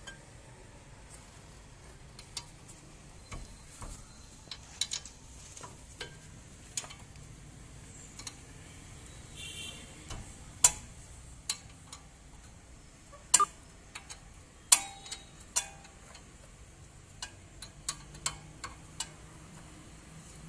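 Scattered sharp metallic clinks and taps of a spanner and other hand tools on a Maruti Celerio's front steering knuckle and brake parts, dismantled to reach a faulty front wheel bearing. The loudest clanks fall a little past the middle.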